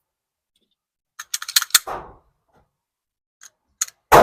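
Metallic clicks and clacks of a semi-automatic pistol being handled: a quick run of sharp clicks about a second in and a duller clack right after, typical of a slide being worked back and forth, then a few lone clicks and a louder sharp knock near the end.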